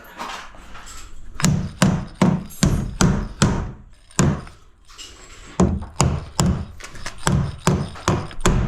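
Hammer driving nails through cement sheet into wall studs: a run of sharp blows, about two to three a second, with a short pause midway.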